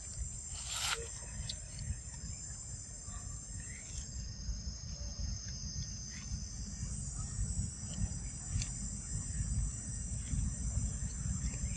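Insects trilling in a steady high-pitched chorus, several tones held together, over a low rumble, with a few faint clicks.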